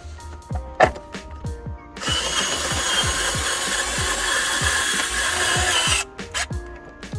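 A power tool runs steadily for about four seconds, starting about two seconds in and stopping sharply near the end, over background music with a steady beat.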